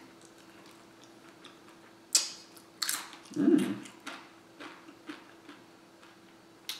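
A person eating tortilla chips and a burrito: a couple of loud crunchy bites about two seconds in, a short low "mmm" just after, then quieter chewing and small mouth clicks.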